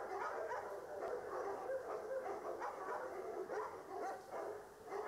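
Many caged dogs barking and yelping together in a dense, continuous chorus of overlapping calls.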